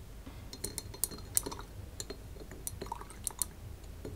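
Paintbrush stirred and rinsed in a glass jar of water, the water sloshing as the brush taps and clinks against the glass about a dozen times at irregular intervals.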